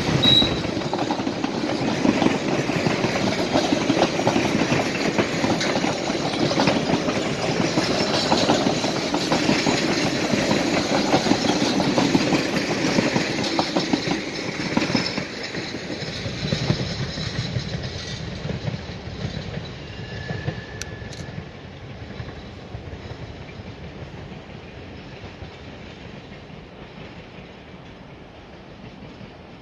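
Passenger coaches of a long excursion train rolling past on the rails with a clickety-clack of wheels over the track, the sound fading away steadily over the second half as the train draws off into the distance.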